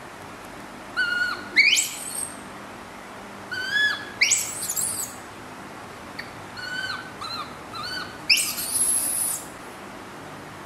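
Baby macaque calling in three bouts, about one, four and seven seconds in. Each bout is a few short, high, whistly coos that dip at the end, then a louder cry that sweeps sharply upward in pitch. The last cry, about eight seconds in, is a long shrill scream.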